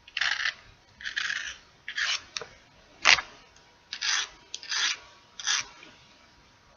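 Chip bag crinkled by hand in short rustling strokes, about once a second, seven in all, with one sharper, louder crackle about three seconds in.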